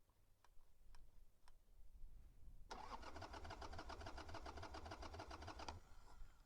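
A few light clicks, then the Harley-Davidson Sportster's starter cranks the V-twin for about three seconds in a fast, even rhythm, and the engine does not catch before the cranking stops. It won't start because the engine is getting no fuel: the carburetor float needle is stuck closed.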